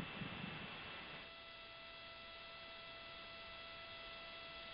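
Faint steady hiss of an audio line, joined about a second in by a steady electronic hum with several evenly spaced overtones.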